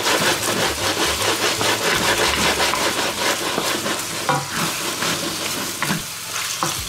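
Beef strips sizzling in a hot wok while a wooden spatula stirs them, with quick repeated scraping strokes against the pan over a steady sizzle.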